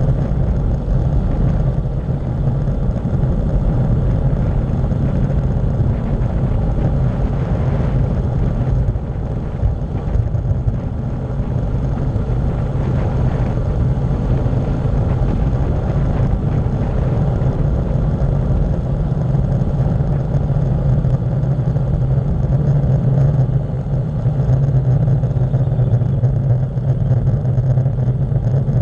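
Steady, loud wind rush and low rumble from air buffeting a bicycle-mounted camera's microphone at speed on a fast downhill road descent.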